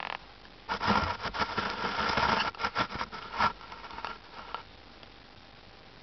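Close rustling and scraping: a dense burst of about two seconds, then scattered clicks that die away, leaving a low hiss.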